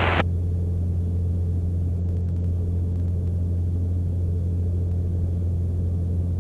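Steady low drone of a Mooney M20C's four-cylinder Lycoming O-360 engine and propeller in flight, heard inside the cabin.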